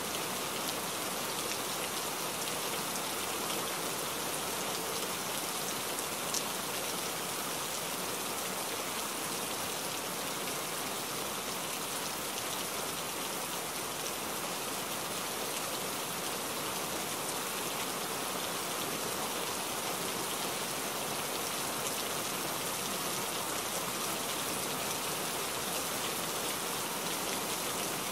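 Steady rain on a moving truck's cab and windshield, an even hiss with no letup, with one small tick about six seconds in.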